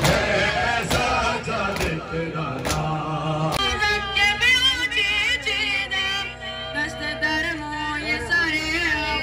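Men's mourning chant (nauha) with regular thuds a little under once a second, changing suddenly about three and a half seconds in to a single voice singing a wavering, ornamented lament over a steady hum.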